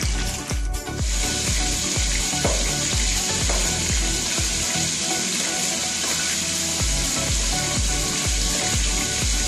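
Pieces of sea catfish sizzling as they fry in hot oil in a pan. Background music with a steady beat of about two bass hits a second plays over it, and the beat drops out briefly past the middle.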